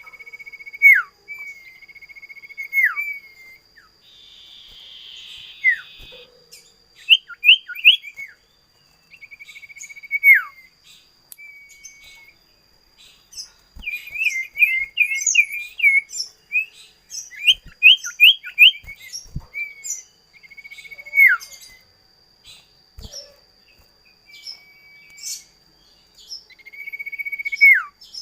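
A songbird singing in whistled phrases: a held note that ends in a sharp downward slur, repeated several times, between groups of three or four quick rising notes and a fast run of notes about halfway through.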